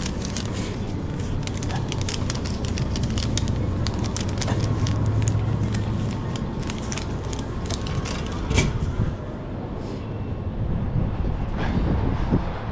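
Outdoor street noise: a steady low vehicle hum under a run of small clicks and rustles, with one louder knock about eight and a half seconds in.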